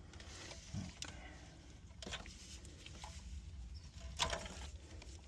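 Plastic wiring connectors being unclipped and pulled from the back of a car radio head unit: faint handling rustle with scattered light clicks, the sharpest about two and four seconds in.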